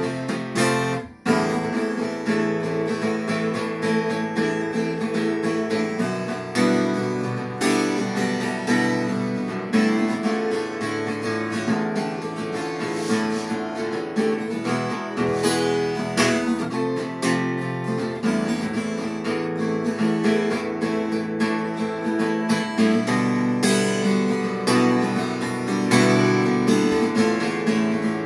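Acoustic guitar strummed in a steady rhythm, playing chords of an instrumental passage with no singing, with a short break about a second in.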